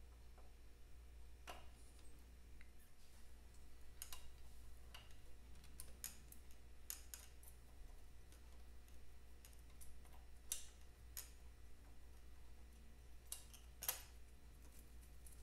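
Light, irregular metal clicks and taps, about eight of them, with the sharpest near the end, as a spanner and fittings are handled on a motorcycle engine's carburettor. A low steady hum sits underneath.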